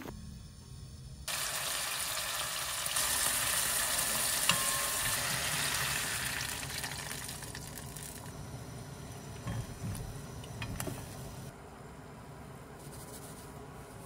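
Bone broth and sliced rice cakes boiling in a pan on a stove, a steady hiss that starts suddenly about a second in and eases off in the second half, with a wooden spoon stirring and a few light taps.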